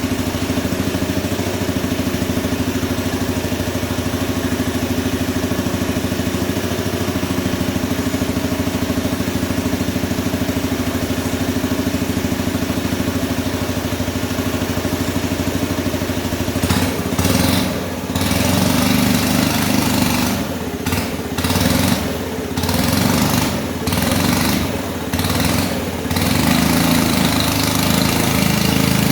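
Small internal-combustion engine of an engine-driven RC model Cat D11 bulldozer, idling steadily, then from a little past halfway revved up and down repeatedly, the note rising and dropping several times.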